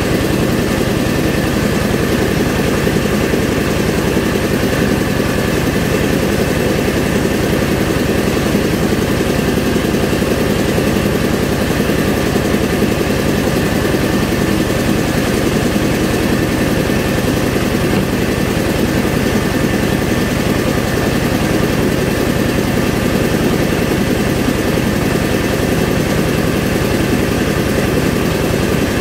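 Engine-driven rice milling machine running steadily, a dense, even mechanical drone with no changes in speed.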